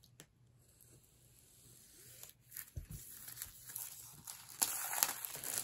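Clear plastic shrink wrap being torn and peeled off a cardboard punchboard sheet, crinkling and crackling. It grows louder in the second half, with a few sharp crackles near the end.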